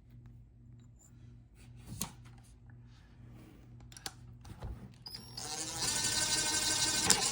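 A few light metal clicks and knocks of parts being handled, then about five seconds in a small electric power-tool motor spins up with a brief rising whine and runs steadily at speed.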